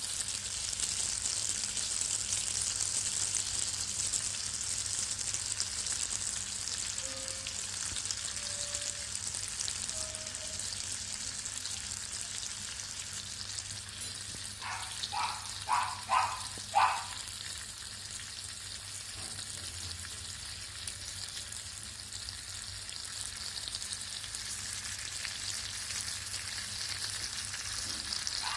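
A whole masala-coated fish sizzling in oil on a flat pan: a steady frying hiss. A little past halfway, four short pitched chirps sound in quick succession over it.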